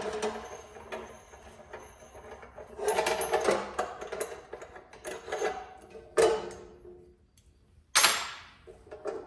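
Metal parts and tools being handled while the chop saw is assembled: scattered clattering and clicking, with two sharp knocks. The louder knock comes near the end and rings briefly.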